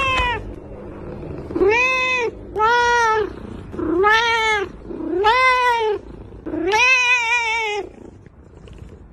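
Domestic cat meowing: the tail of one meow, then five arched meows about a second apart, the last one longer with a wavering pitch.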